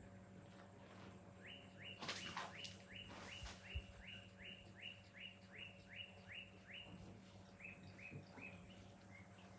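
A bird calling over and over, a short rising note about three times a second, pausing briefly once near the end. Two brief rushes of noise come about two and three and a half seconds in.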